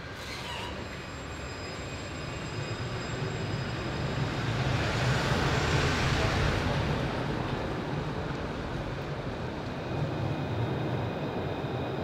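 A tram passing close by: a low rumble and rush of wheels and motor that swells to a peak about five to seven seconds in, then eases off.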